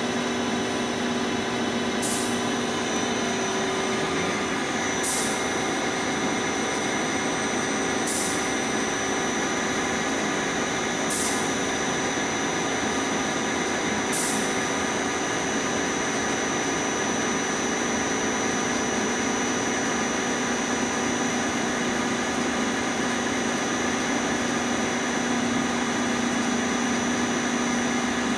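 Spindle and gearbox of a Lucas 542B-84 horizontal boring mill running steadily at 500 RPM in high range, a constant mechanical hum with a whine of several steady gear tones. Short high ticks come about every three seconds through the first half.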